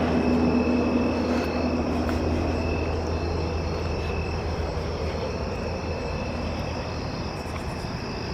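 Steady low engine drone, slowly fading, with crickets chirping in thin, steady high tones.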